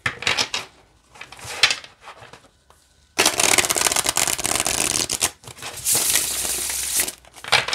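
A deck of gilt-edged tarot cards being riffle-shuffled on a table. First a few taps and clicks as the deck is split, then a dense riffling rattle of cards interleaving for about two seconds. A second, softer rustle follows as the bridged cards cascade back into one stack.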